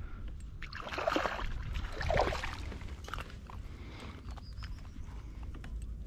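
Small hooked fish splashing at the surface twice, about one and two seconds in, as it is reeled up to a kayak and lifted from the water, with scattered light clicks over a steady low rumble.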